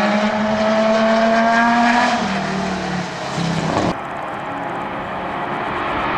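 Group C sports-prototype race car engine accelerating hard past the track side. Its pitch climbs steadily, then drops at an upshift about two seconds in. After an abrupt cut about four seconds in, a race car engine sounds quieter and more distant, rising again near the end.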